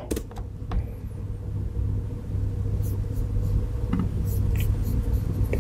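Steady low rumble with a hum, swelling slightly over a few seconds, and a few faint clicks such as a key press just at the start.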